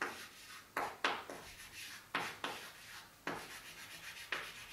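Chalk writing on a chalkboard: a series of short, scratchy chalk strokes at an irregular pace as two words are written out.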